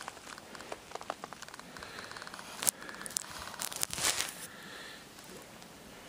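Irregular crunching and rustling, with a sharp crack a little before the middle and a denser run of crackles soon after, then settling into a faint steady hiss.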